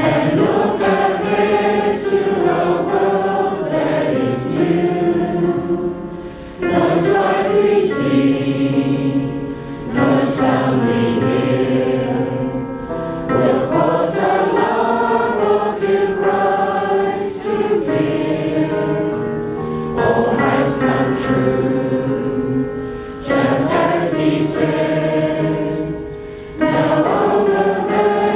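A congregation singing a hymn together, line by line, with short breaks between the sung phrases.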